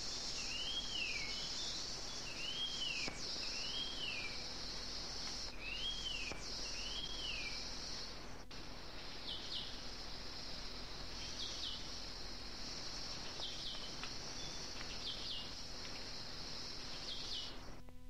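White-eared monarch calling: about five arched, rise-and-fall whistled notes in the first seven seconds, then short, sharp downward notes, mostly in pairs. A steady high insect drone runs under it and is the loudest sound.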